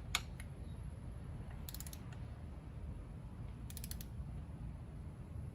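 Socket ratchet clicking as a water pump bolt is tightened: one sharp click just after the start, then two short runs of quick ticks about two seconds apart.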